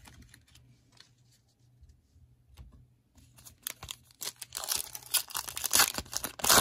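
A foil trading-card pack (2021 Panini Prestige football) being torn open and crinkled in the hands, starting about three and a half seconds in and getting louder toward the end. Before that, only a few faint clicks of handling.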